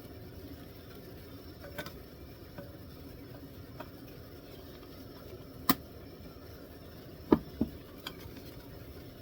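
A few scattered sharp clicks and knocks over a faint steady background, the sharpest about halfway through and a close pair a couple of seconds later.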